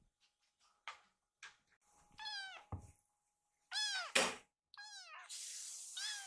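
Young kitten meowing insistently, four loud meows each falling in pitch, demanding food in the belief that it is feeding time. A sharp click comes between the second and third meows.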